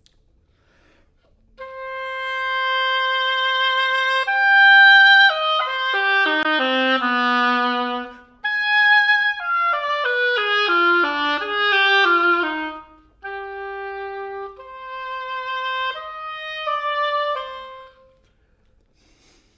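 Solo oboe played forte: a long held note, then falling runs of quick notes and more held notes, with two short breaks for breath. The playing stops about a second and a half before the end.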